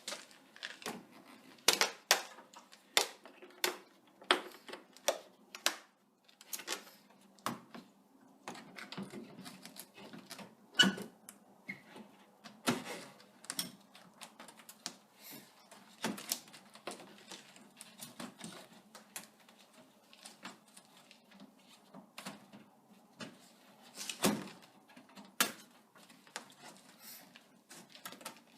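Irregular sharp plastic clicks and knocks as a new headlight assembly for a 2000–2005 Chevrolet Impala is handled and pushed into place in its mount, with louder knocks about 2, 11 and 24 seconds in.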